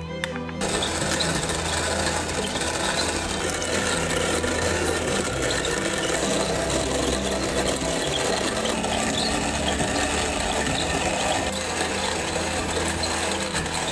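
Electric hand blender running steadily, switched on just under a second in and kept running without a pause.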